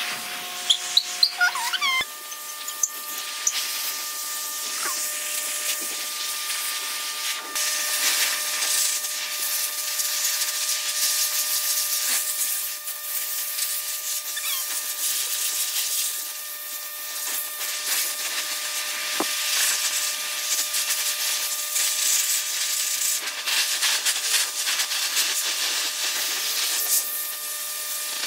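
Handheld pet hair dryer running steadily on a wet Yorkie puppy's coat: a constant airy hiss with a steady motor whine, whose pitch shifts about two seconds in. A few short, high squeaks sound in the first two seconds.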